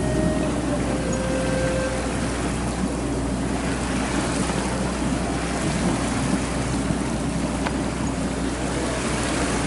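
Steady drone of a sailing yacht's engine under way, with the rush of water along the hull and wind noise.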